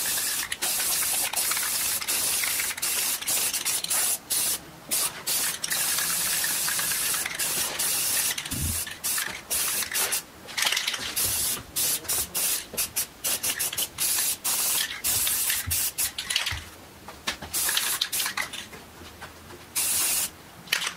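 Aerosol spray paint can hissing in many short sprays with brief gaps between them, as a light green base coat goes on; the sprays come longer at first and become sparser near the end.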